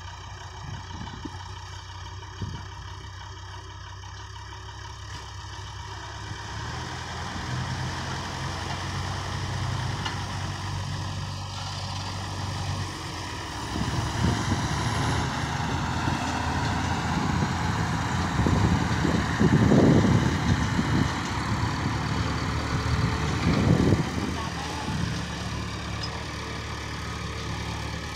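Diesel engines of a sugarcane-laden Tata truck and a backhoe loader running together while the backhoe pushes the truck from behind across soft field soil. They rev up hard several times in the second half, loudest about two-thirds of the way through, then settle as the truck pulls away.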